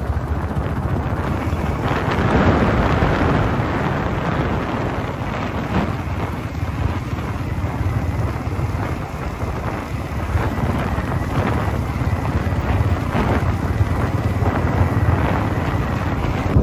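Riding noise from a moving motorcycle: wind rushing over the microphone over a steady low rumble of engine and road.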